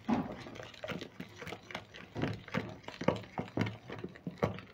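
Wooden spoon knocking and scraping against a glass mixing bowl while flour is stirred into liquid: a steady run of irregular light clicks, several a second.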